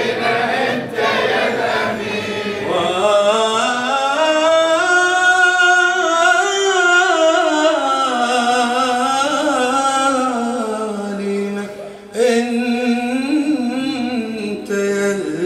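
A male radood chanting a devotional Arabic chant into a microphone, drawing out one long melismatic phrase whose pitch rises and then falls. Near the end a fresh phrase begins.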